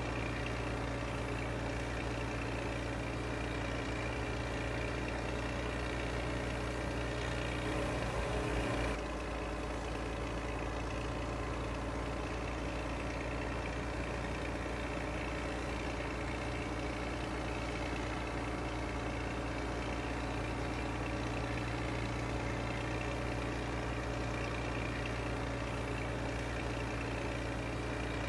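Engine running steadily at a constant speed, a low even hum. About eight seconds in it grows slightly louder and hissier for a second or two, then drops back suddenly.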